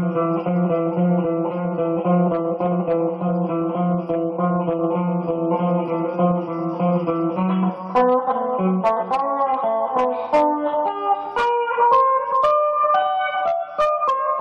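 Solo guitar playing. First a steady chord pulses about twice a second, then about eight seconds in it changes to single picked notes in a wandering melody.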